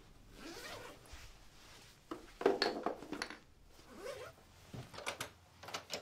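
A zipper on a backpack or jacket pulled in several short strokes, with fabric rustling.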